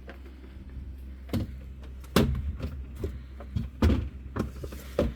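A series of irregular heavy knocks and thumps, the loudest about two and four seconds in, over a steady low hum.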